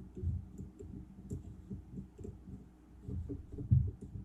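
Irregular soft clicks and light knocks from hands working a rotary fly tying vise and its tools while wire is tied in, with a sharper knock near the end.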